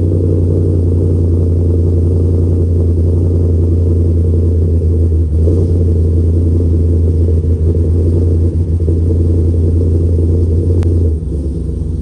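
A 2017 Ram 1500 pickup's engine running steadily with a deep, loud rumble, its note easing slightly about eleven seconds in, with a faint click at about the same moment.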